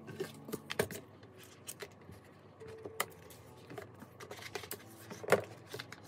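Hands handling a clear PVC binder cover and fitting it over a ring binder: scattered light clicks and taps of stiff plastic, the sharpest a little before the end.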